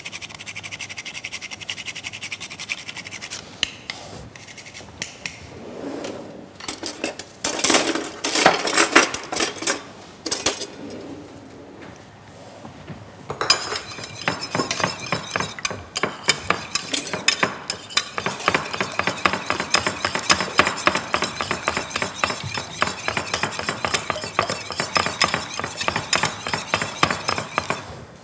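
Eggs being beaten in a bowl, the utensil clicking rapidly and steadily against the bowl through the second half. Before that, a few seconds of louder clattering of kitchenware.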